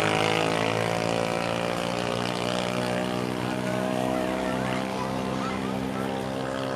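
A motor vehicle's engine idling with a steady, unchanging pitch.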